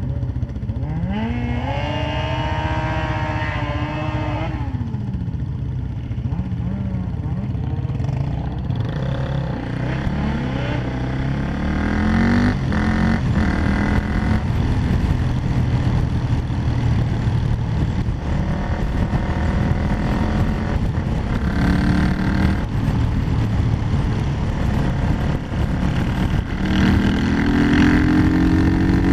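Quad bike engine running on the road, its pitch rising as it revs up and falling as it eases off several times, over a steady rush of wind and road noise.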